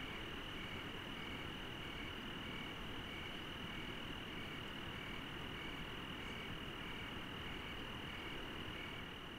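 Night insects: crickets with a steady high trill and a second chirp repeating about twice a second, over a low steady rushing background.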